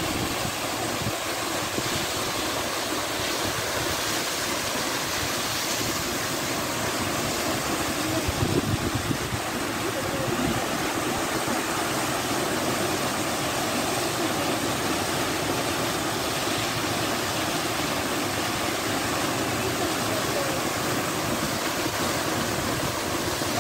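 Waterfall pouring down a rock face and splashing into a shallow pool: a steady, even rushing of water.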